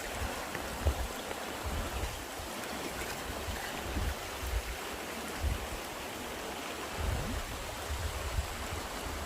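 Mountain stream running high after rain, rushing water over rocks, with irregular low buffeting of wind on the microphone.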